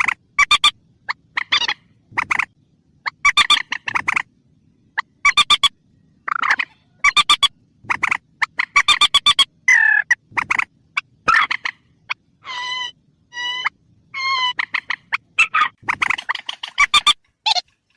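Rail (burung mandar) lure-call recording: loud, short calls given in quick rattling series, with a few longer, clearer notes about two-thirds of the way through.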